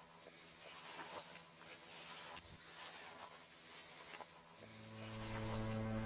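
Steady high-pitched insect chorus with a few faint rustles and clicks. About four and a half seconds in, a low sustained music note enters beneath it and swells.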